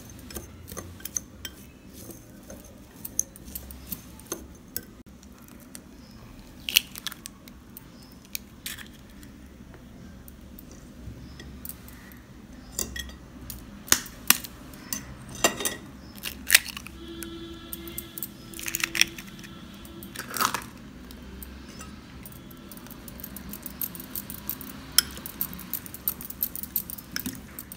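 Wire whisk clicking and scraping against a glass bowl, stirring chopped onion, coriander and spices and then beating in a raw egg. The clicks are sparse at first, with a few sharper knocks in the middle, and come quick and thick near the end as the egg is whisked.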